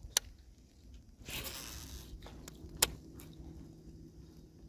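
Handling noise of gear in a kayak: a sharp click, a brief scraping rustle about a second in, a few faint ticks and a second sharp click near the end, over a faint steady low hum.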